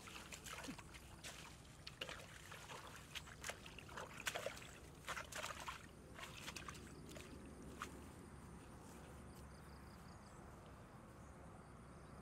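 Faint splashing and rustling of hands rummaging through wet grass and shallow muddy water, a run of small sharp splashes and crackles that dies away about eight seconds in.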